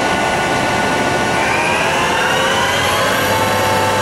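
Spindle drive of a Milltronic HBM4 CNC horizontal boring mill (4.3-inch spindle) running under power after a shift of speed range, a steady multi-tone whine. From about a second and a half in, part of the whine rises in pitch as the spindle speeds up, then holds steady.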